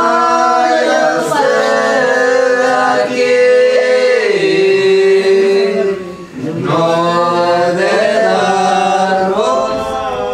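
Voices singing unaccompanied in long held notes that slide from one pitch to the next. There is a short break between phrases about six seconds in.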